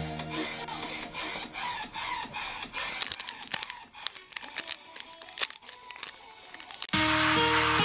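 Foil Pokémon booster pack crinkling and being torn open by hand: a quiet run of sharp crackles and clicks. Background music cuts back in suddenly near the end, louder than the crackling.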